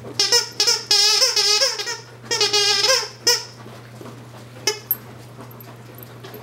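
Squeaker inside a plush snake toy squeaking as a puppy chews it: a few short squeaks, then two long warbling squeaks, the first about a second in and the second at about two and a half seconds. After that it is mostly quiet, with a couple of soft clicks.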